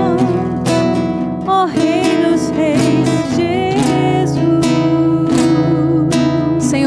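Acoustic guitar strummed steadily under a singing voice, music of a worship song.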